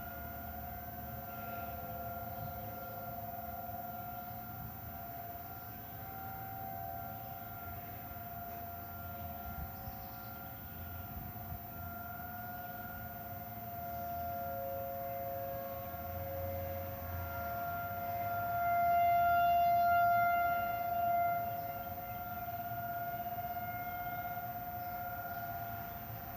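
Several outdoor tornado warning sirens, the nearest a Federal Signal 2001, sounding a steady alert tone during a scheduled monthly test. The tone holds its pitch while its loudness swells and fades as the rotating sirens turn, loudest a little past the middle.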